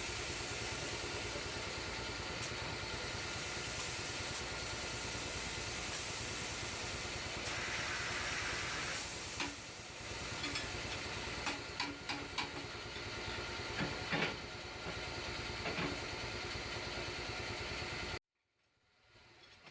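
Tyre-shop work noise: a steady hiss over a low mechanical hum, with scattered sharp clicks and metal knocks in the second half, as a heavy truck tyre is worked onto its rim by machine. It cuts off abruptly near the end.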